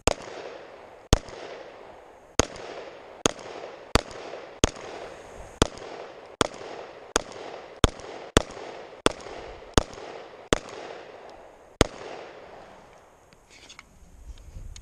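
Glock 19 9mm pistol fired fifteen times in a steady string, about one shot every 0.7 s with a longer pause before the last, each shot followed by a short echo. Fifteen rounds is a full standard Glock 19 magazine.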